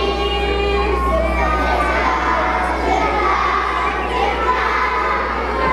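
A large group of children shouting and cheering together, many voices at once, over a steady low hum.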